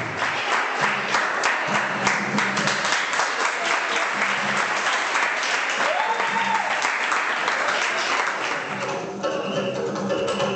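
Audience applauding, a dense run of clapping that thins out and dies down about nine seconds in.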